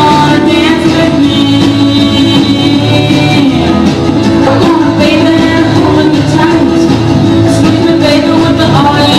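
Rock and roll record playing: a full band with a singer, loud and continuous.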